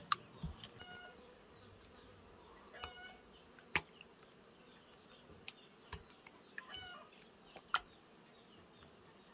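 Short, steady-pitched animal calls repeating every second or two, with a few sharp clicks in between.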